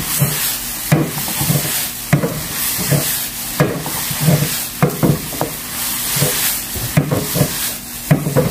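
Stir-fry of bell peppers, onion and seafood sizzling in chili oil in a pan, stirred with a wooden spoon that knocks and scrapes against the pan in irregular strokes, about one or two a second.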